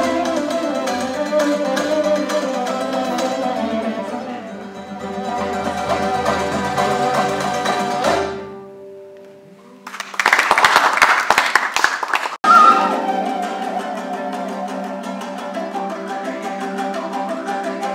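Traditional Kazakh folk ensemble playing plucked dombra, zither and bowed kobyz. The music fades away about eight seconds in. After a short lull comes a loud burst of noise lasting about two seconds, which cuts off abruptly, and then the strings play on.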